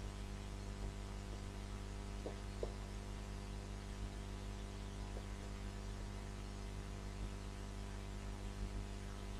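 Low, steady electrical mains hum with background hiss, and a couple of faint clicks about two and a half seconds in.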